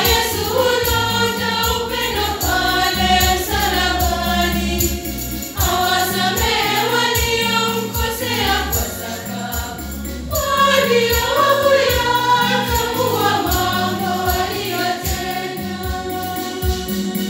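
Choir singing a hymn over instrumental accompaniment, with steady low bass notes and a light, regular percussion beat.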